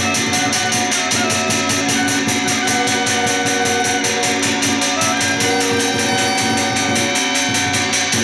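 Chinese ritual band music: a suona (double-reed shawm) plays a sustained, wavering melody over a fast, even percussion beat of about five strokes a second.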